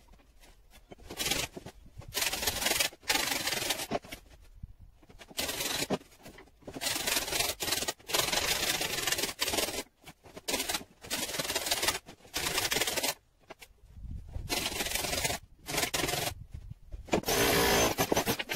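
Brickwork of a rendered house wall being cut out for strong boys, heard as repeated short bursts of harsh cutting and scraping noise, each about half a second to a second long, with short pauses between them.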